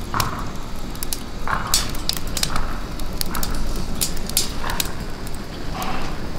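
Natural mesquite lump charcoal burning in a chimney starter: the flames rush and crackle, with many sharp pops over a steady low rumble.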